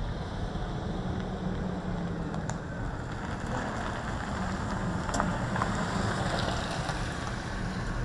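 2000 GMC Sierra 1500 pickup driving slowly across an asphalt lot toward the microphone, a low engine hum under steady tyre noise that grows louder from about three and a half seconds in as the truck nears.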